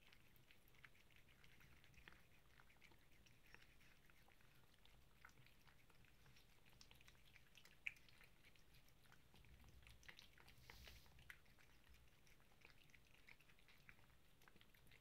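Faint chewing of a domestic cat eating: soft irregular clicks and smacks, with one sharper click about eight seconds in.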